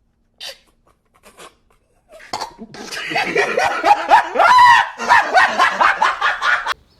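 Young men laughing hard: a couple of short faint bursts, then about two seconds in a loud run of rapid, pulsing laughter that lasts about four seconds and stops abruptly.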